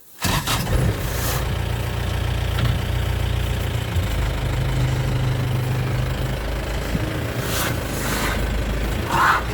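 A vehicle engine running steadily at idle, cutting in abruptly at the start. A short higher-pitched call or honk comes near the end.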